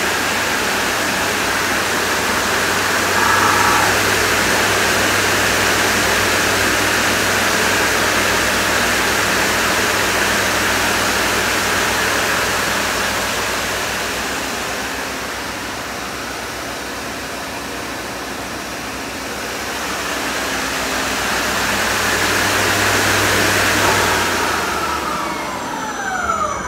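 Ikegai TU-30LL CNC lathe's 30 hp gearbox spindle running at speed with its 15-inch chuck spinning: a steady mechanical whir over a low hum. Near the end the spindle winds down to a stop, its whine falling in pitch.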